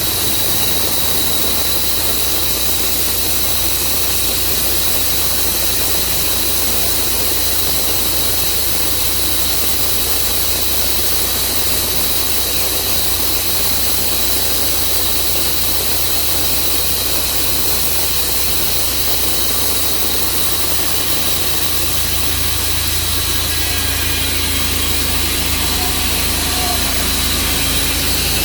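Portable bandsaw sawmill's engine running steadily. A deeper hum grows a little about two-thirds of the way through.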